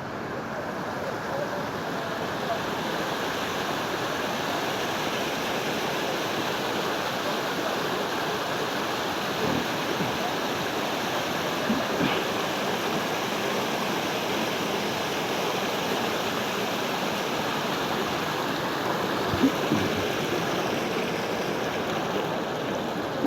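Rushing water of a fast mountain river or stream: a steady, even rush that does not let up.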